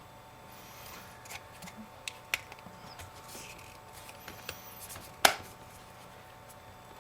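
Small clicks and ticks as an iPhone 5 display assembly is handled and pressed down into the phone's aluminum casing, with one sharp, loud click about five seconds in.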